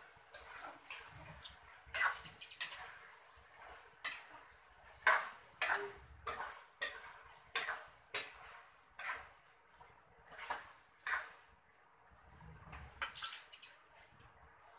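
A metal cooking utensil clanking and scraping against a frying pan as food is stirred on the stove, in quick uneven strokes. The stirring stops about three-quarters of the way in.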